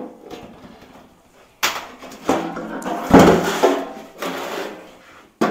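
Old VW Beetle steel gas tank scraping and knocking against the tight steel hoop it is being pushed into, starting about a second and a half in, with a heavy knock about three seconds in.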